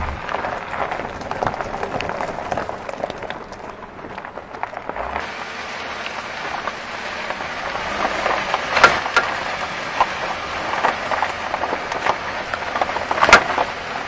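Car driving over bumps with a knock from somewhere underneath, the fault being hunted. Sharp knocks come at irregular intervals over steady rough road noise, the loudest about nine and thirteen seconds in.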